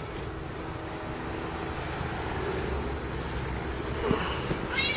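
Domestic cat purring steadily while being brushed, with the brush rubbing through her fur. A knock about four seconds in and a brief high-pitched sound near the end.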